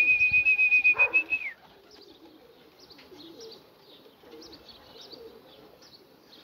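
A long, steady whistle that ends about a second and a half in with a short downward slide, followed by racing pigeons cooing softly and small birds chirping.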